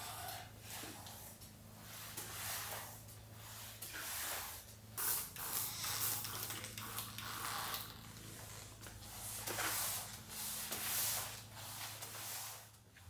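Spray mop pushed back and forth over a wood floor: repeated swishing, creaking strokes of the pad, with short hissing sprays of cleaning solution, over a steady low hum.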